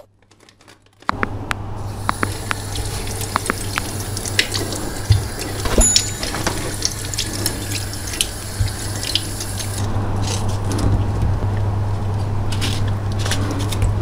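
Kitchen tap running into a sink while oranges are rinsed under the stream. The water comes on about a second in, with scattered small knocks and clicks over the steady flow.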